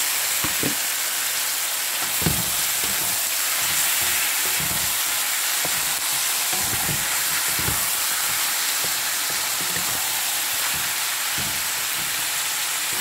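Raw chicken pieces sizzling in hot oil in a wok with sautéed onions, tomatoes and peppers, a steady hiss, while a wooden spatula stirs them, with short knocks against the pan now and then.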